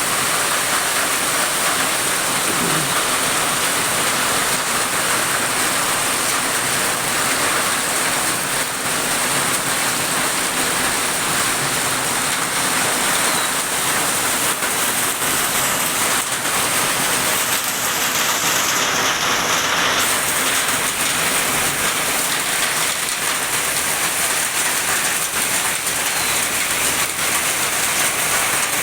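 Heavy rain pouring down, a steady dense hiss of rain hitting surfaces.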